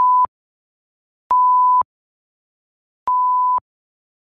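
Censor bleeps edited into the soundtrack to mask the digits of an account number being read out. A steady, high single-pitched beep of about half a second comes three times, with dead silence between.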